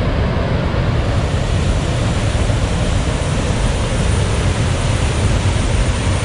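Waterfall close by: water falling and rushing in a steady, loud noise with a heavy low rumble.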